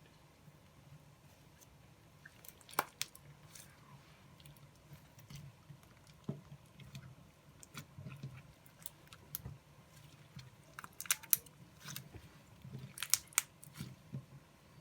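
Foam-bead slime being squeezed and stretched by hand: faint, irregular crackles and clicks, busiest about eleven to thirteen seconds in.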